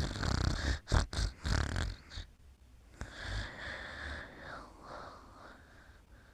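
Snoring: a loud, rattling snore on the in-breath for about two seconds, then a softer, longer out-breath with a faint wavering whistle that dies away.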